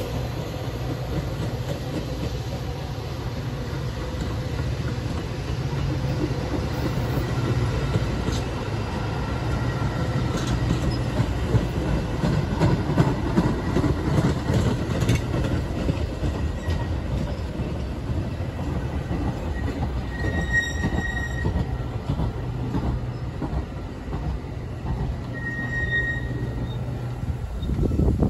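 Metra bilevel commuter coaches rolling past at speed, with a steady rumble of steel wheels on rail. Short thin wheel squeals come about two-thirds of the way through and again near the end, and the noise drops off suddenly right at the end.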